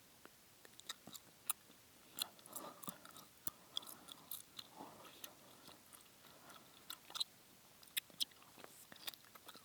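Close-miked gum chewing: irregular wet clicks and smacks of the mouth, with a few softer, longer mouth sounds in between.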